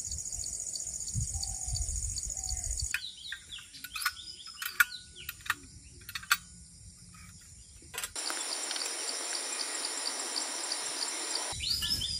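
Forest ambience: insects trill steadily and high throughout, with small birds chirping and a few sharp clicks in the middle. For a few seconds near the end a steady hiss joins the insects.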